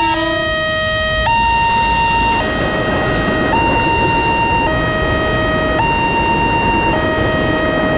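Electronic warning siren of a railway level crossing, alternating between a high and a low tone about every second, with a steady low rumble underneath.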